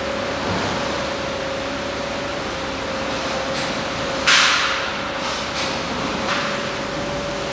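Industrial machinery running with a steady hum and one steady tone. Short hissing bursts break in several times; the loudest, about four seconds in, fades over half a second.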